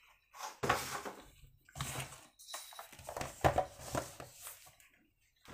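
Hands handling things on a tabletop as a plastic digital kitchen scale is set out: a run of irregular knocks, rubs and rustles with short gaps between them.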